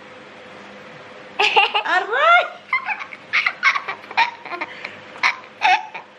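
A small boy and a woman laughing together in a run of short giggling bursts, starting about a second in, with a cry of "aray" (ouch) among them.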